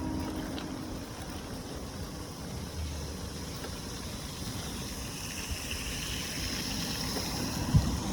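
Steady low rumble and hiss of outdoor noise, with a single sharp thump near the end.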